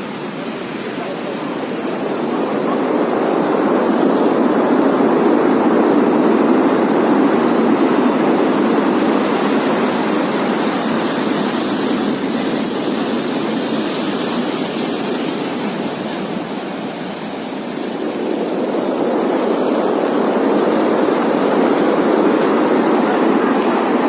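Strong storm wind rushing in long gusts. It builds over the first few seconds, eases about two-thirds of the way through, then rises again.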